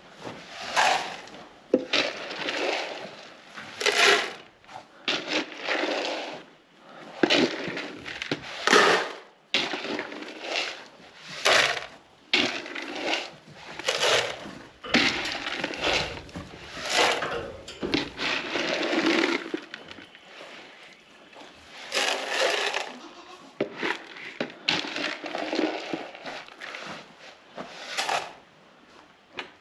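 Goats and sheep eating grain: irregular crunching and rustling noises, a burst every second or so.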